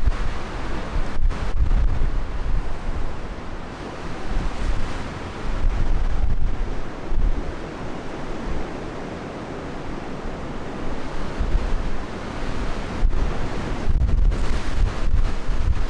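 Storm wind buffeting the microphone: a steady rushing noise with heavy low rumbling gusts that swell and ease every few seconds.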